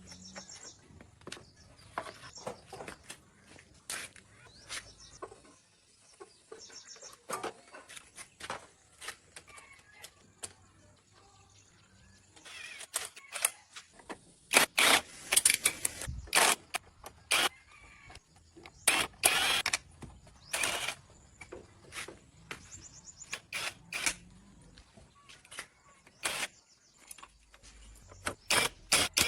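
Irregular sharp knocks and clanks of work on steel parts, with a run of louder, longer noisy bursts in the middle.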